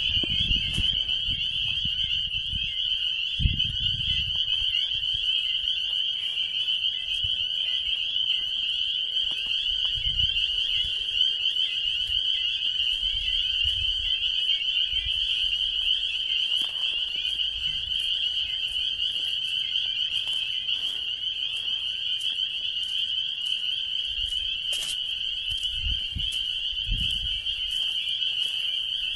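A dense chorus of small frogs calling together from a pool of water, merging into one continuous shrill, high-pitched din that sounds like insects. Low rumbles come once near the start and again near the end.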